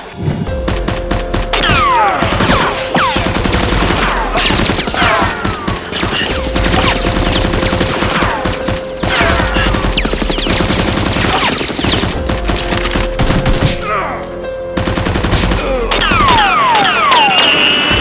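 Rapid gunfire sound effects: sustained machine-gun bursts mixed with repeated falling whistles, with a short lull about fourteen seconds in, over background music.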